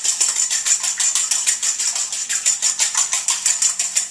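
A metal fork beating raw eggs in a stainless steel bowl: rapid, even clinks of the fork against the bowl's side, in a fast steady rhythm.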